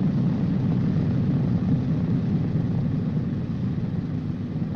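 Boeing B-29 Superfortress's Wright R-3350 radial piston engines running, a steady low drone.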